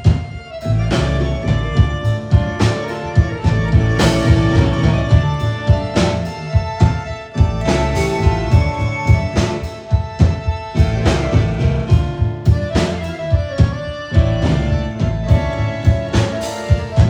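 Live rock band playing an instrumental passage of an original song: drum kit keeping a steady beat with guitar and bass, without vocals.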